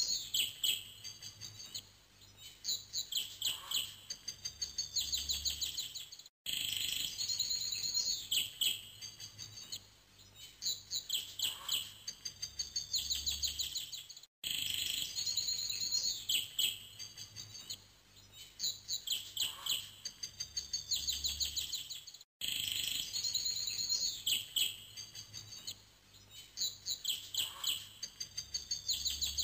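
Birdsong, a short recording of chirps and trills looped over and over, so that the same stretch repeats about every eight seconds.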